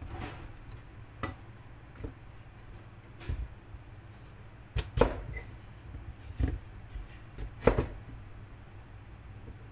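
Knife chopping food on a cutting board: about eight sharp, single chops at uneven intervals, the loudest ones past the middle.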